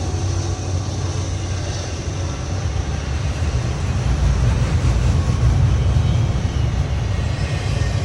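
Intermodal freight train rolling past: a steady low rumble with a haze of rolling noise, swelling a little about four to six seconds in.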